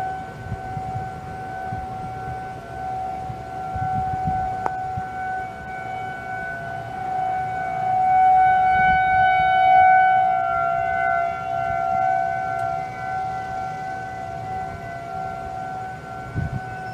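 Federal Signal 2001-SRN outdoor warning sirens sounding a steady alert tone. Several sirens overlap in slightly different pitches, and the sound swells and fades as they rotate.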